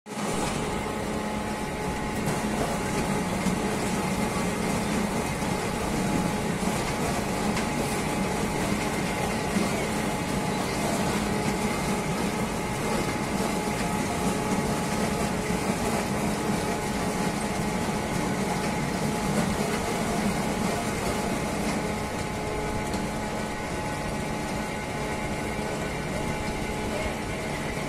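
Mobile apple press running steadily, its mill and pulley-driven machinery giving a continuous mechanical hum with a few held tones.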